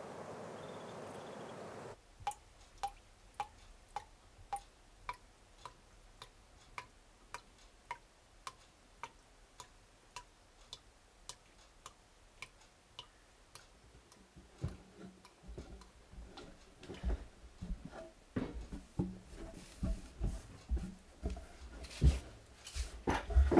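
A clock ticking steadily, about two ticks a second, after a brief stretch of outdoor hush. From a little past halfway, irregular knocks and thumps of kitchen activity join the ticking; the loudest bumps come near the end.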